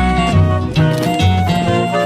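Instrumental background music with guitar and bass notes changing in a steady rhythm.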